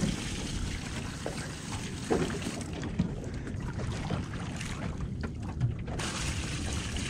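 Wind buffeting the microphone and water lapping around a small boat's hull, with a few short splashes and knocks from a plastic jug dipped over the side and emptied into a fish cooler.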